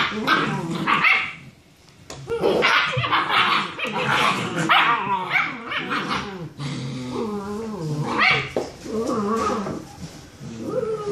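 Several six-week-old German Shepherd puppies play-fighting: a dense, overlapping run of high yips, barks and growls, with a short lull about two seconds in.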